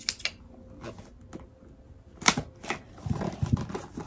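A small cardboard box being handled and opened: clicking taps and rustling, with one sharp loud click a little past halfway and a run of knocks and scrapes near the end.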